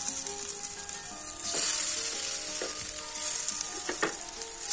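Hara bhara kebab patties (tikkis) sizzling in hot oil in a frying pan. The sizzle swells about a second and a half in and again near three seconds as more patties are laid in, with a few light taps.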